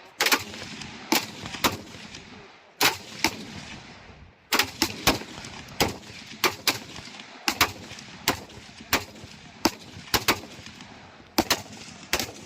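7.62 mm SLR rifles firing a string of single shots at irregular intervals, sometimes two or three in quick succession, each crack followed by a short echo.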